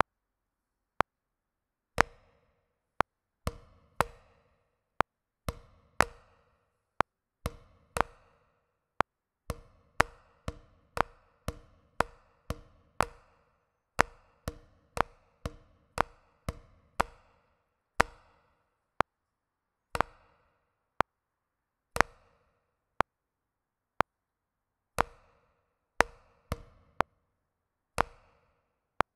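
Wooden drumsticks tapping a rubber practice pad, playing a sight-reading exercise of quarter and eighth notes with rests in between. A metronome clicks steadily about once a second underneath.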